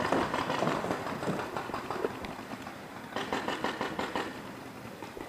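Paintball markers firing rapid strings of shots: a string at the start, then another quick volley about three seconds in.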